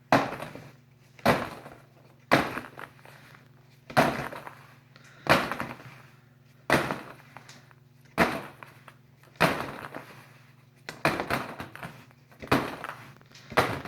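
Numbered ping pong balls being dropped into a bag: a sharp clack roughly every second, about a dozen in all, each trailing off briefly.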